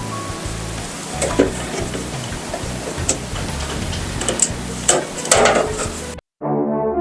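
Small metal clicks and taps of screws and a screwdriver being handled while fastening a motherboard into a PC case, over a steady hiss. About six seconds in the sound cuts off abruptly and brass music starts.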